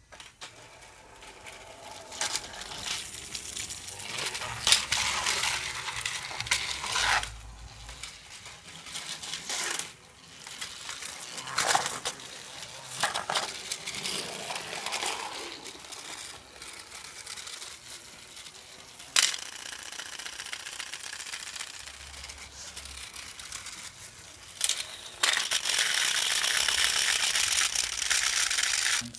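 Battery-powered Trackmaster motorized toy trains running on plastic track: a continuous light clatter and rattle with scattered sharp clicks and knocks. Near the end the sound turns to a steadier, louder whirring hiss.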